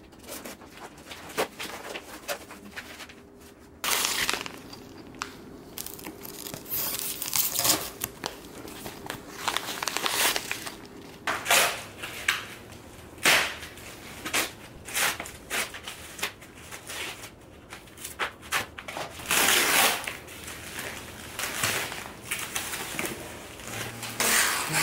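Foam packing sheets and plastic wrap being cut with scissors, torn and crumpled, in irregular bursts of crinkling and rustling.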